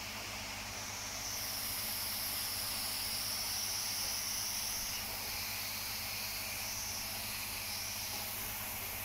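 Steady hiss with a faint low hum beneath it, growing a little louder about a second in.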